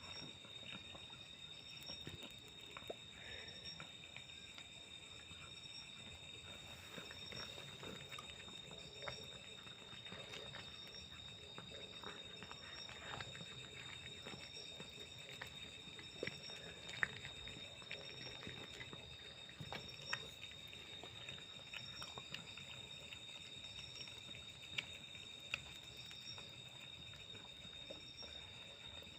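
Insects, likely crickets, trilling steadily, with a high, evenly repeating chirp over a constant high tone. Scattered soft clicks and taps are heard, a few of them sharper.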